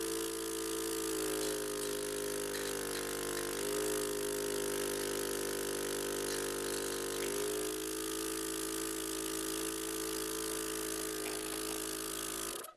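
Portable medical suction machine's motor running with a steady hum during airway suctioning. Its pitch shifts slightly a few times, and it stops suddenly near the end.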